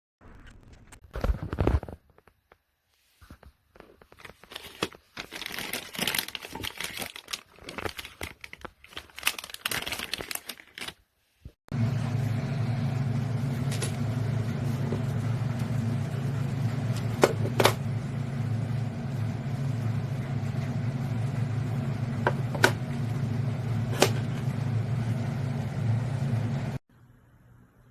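Plastic packaging crinkling and rustling in handled bursts, as a product is unpacked. About twelve seconds in, a steady low hum takes over, marked by a few sharp clicks, and it cuts off suddenly near the end.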